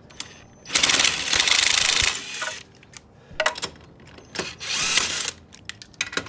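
Ryobi cordless impact driver with a 13/16 socket hammering on a wheel's lug nuts to break them loose: a burst of about one and a half seconds, then a shorter burst a few seconds later, and a third starting near the end.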